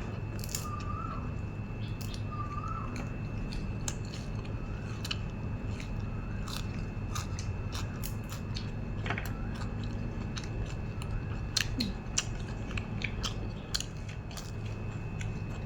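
A person chewing and biting nam tok moo (grilled pork salad) close to the microphone, with many small irregular crunches and mouth smacks over a steady low hum. A faint short call repeats about once a second in the first few seconds.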